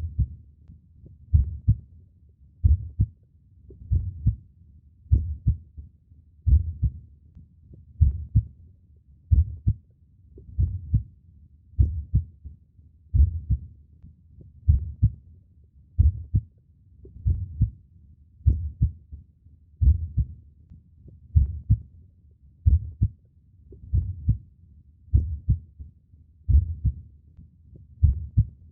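Human heartbeat, slow and steady: low paired thumps (lub-dub), one beat about every 1.4 seconds.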